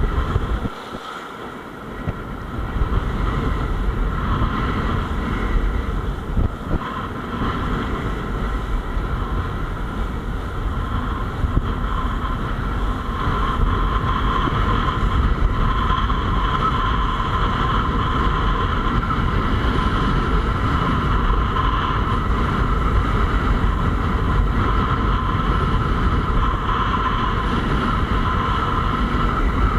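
Wind buffeting the microphone of a camera carried by a kitesurfer riding across choppy water: a steady low rumble with a thin steady whine above it.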